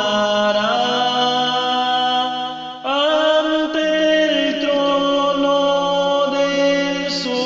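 Slow hymn sung in Spanish with long held notes, dipping briefly and starting a new phrase about three seconds in.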